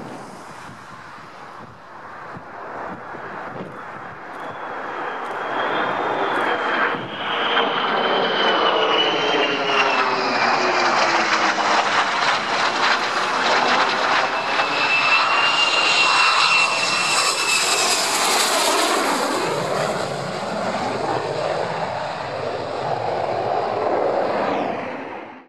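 Military fighter jet's engines growing louder over several seconds as it comes in low on approach, with a high whine gliding down in pitch as it passes, then staying loud until cutting off suddenly at the end.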